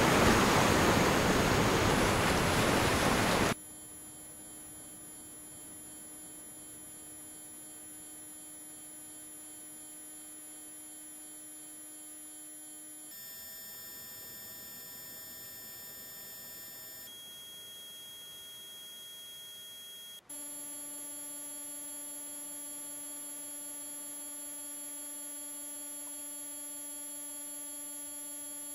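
Recorded ocean-wave noise cuts off abruptly about three and a half seconds in, leaving a chord of steady electronic sine tones. The set of tones changes several times: around the middle, and again about two-thirds through after a brief dropout. These are synthesized radionics 'mineral frequencies' played one set after another.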